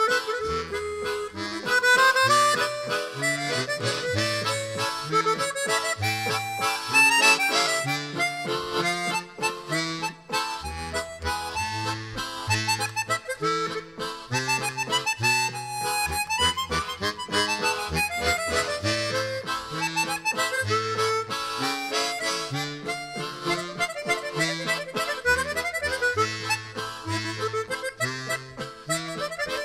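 Instrumental background music: a melody over a stepped bass line, running throughout.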